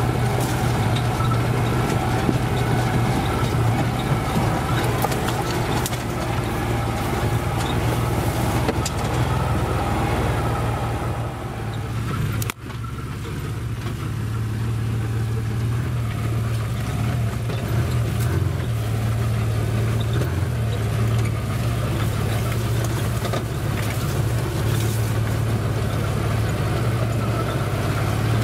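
Side-by-side off-road vehicle's engine running steadily at low speed on a rocky trail, with scattered faint knocks over it. The sound dips sharply for an instant about halfway through.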